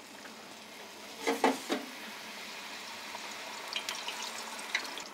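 Wheat-flour puri sizzling as it deep-fries in hot oil in a kadai, with light crackling near the end. A few sharp knocks come about a second and a half in.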